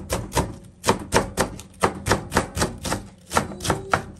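Kitchen knife slicing long green onions on a cutting board: quick, even chops about four a second.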